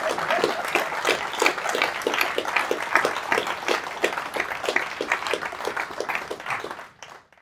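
Audience applauding: a dense patter of many hands clapping, fading out near the end.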